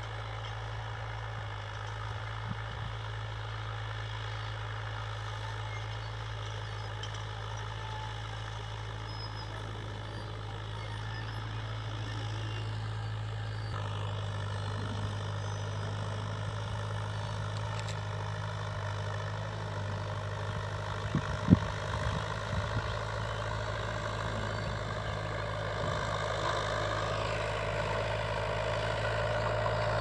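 Small crawler tractor's engine running steadily under load as it drags a disc harrow across ploughed soil, heard from a distance. There are a couple of sharp knocks about two-thirds of the way through, and the engine grows a little louder near the end.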